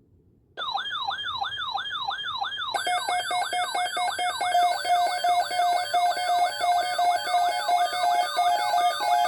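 Electronic siren-style alert tones. A falling yelp sweep starts about half a second in and repeats three to four times a second. About three seconds in, a second layer of tones rapidly alternating between a high and a low pitch joins it.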